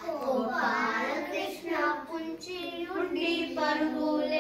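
A small group of young children singing a song together, voices holding notes between short phrase breaks.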